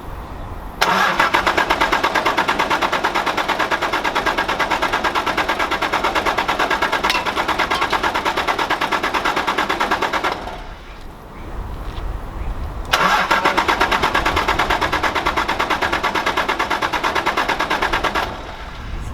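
Toyota 2H naturally aspirated diesel in a 1980 HJ47 Landcruiser being cranked on the starter in two long bursts with a short pause between them, turning over with an even pulsing but not catching. The engine needs starting spray.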